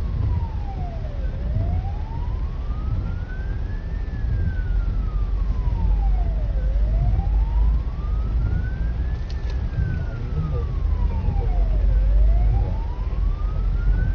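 Hong Kong Fire Services Department ambulance siren sounding a slow wail, rising and falling about every five seconds. It is heard from inside a following car, over the car's low engine and road rumble.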